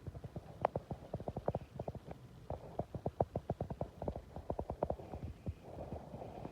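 Raindrops striking close to the microphone in a rapid, irregular run of light taps, over a low rumble of wind on the microphone.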